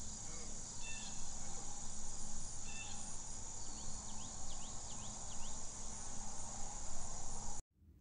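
Outdoor ambience dominated by a steady high-pitched insect buzz, with a low rumble underneath. There are brief faint chirps about one and three seconds in, and a quick run of five short falling chirps a little past the middle. It all cuts off suddenly near the end.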